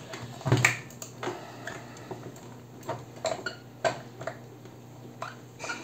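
A dozen or so irregular small clicks and taps as the plastic housing of an AquaReef Pro2 reef LED light is handled and probed for a way to open it, over a faint steady low hum.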